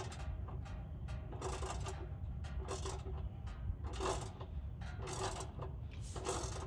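Irregular clicks and scrapes of tools and parts being handled under a vehicle, a short burst every half second to a second, over a steady low rumble.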